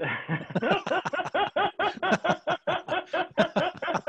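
Two men laughing heartily together over a video call, in a steady run of short "ha-ha" pulses, about six a second.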